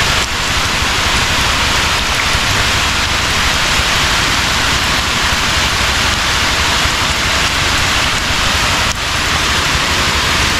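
Steady rain falling, a loud even hiss that does not let up.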